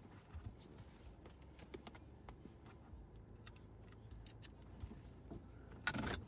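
Faint, scattered small clicks and taps, with a brief louder rustle of noise near the end.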